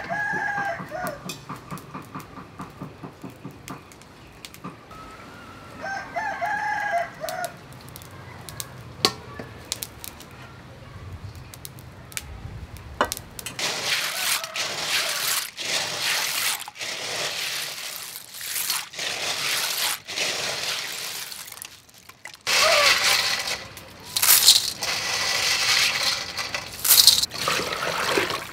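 Hands scrubbing a bowlful of tiny sea snails in water, their shells grinding and rattling against each other and the steel bowl in repeated wet, crunchy strokes from about halfway in. A rooster crows at the start and again a few seconds later.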